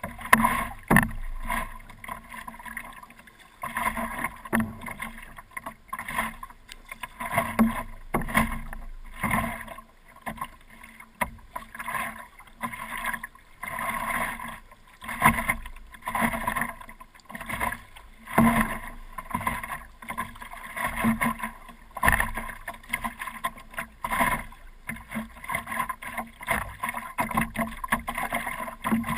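Stand-up paddle strokes: the paddle blade dips and pulls through the water in a steady rhythm of roughly one stroke a second, each with a splash and water sloshing around the board.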